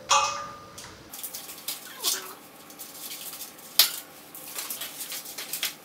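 Zip ties being snipped with cutting pliers and pulled off a bike's frame and wheel: a string of sharp clicks and snaps, the loudest about four seconds in and several quick ones near the end, with light rustling of packing material.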